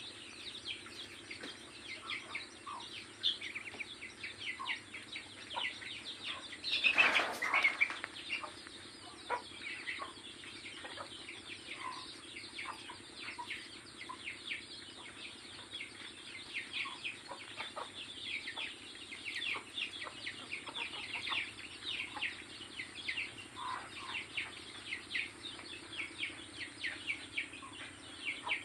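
Many birds chirping in quick, overlapping high, falling notes, with a loud rush of wing flapping about seven seconds in.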